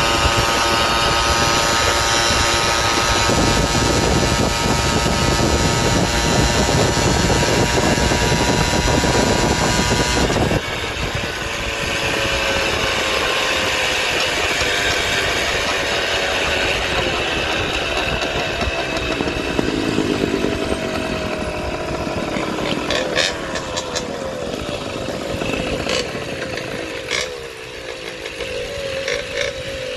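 Small engine of a motorized bicycle running at steady high revs for about ten seconds, when the sound drops abruptly. The engine's pitch then slowly falls as the bike slows, with a few sharp clicks near the end.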